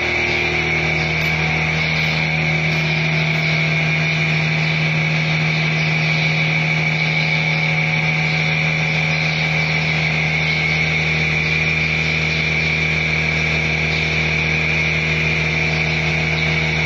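Machinery running steadily: a constant low hum with a high whine above it, unchanging throughout.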